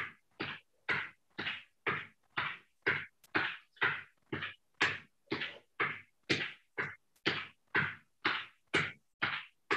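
Sneakered footfalls on a thin exercise mat over a wood floor, about two a second, as a person marches in place, driving the knees up.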